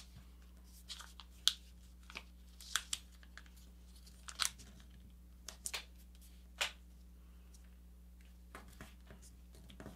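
A sheet of paper being folded and creased by hand, giving short, sharp crinkles and crackles every second or so as the fingers press a small winglet fold flat. A faint steady low hum runs underneath.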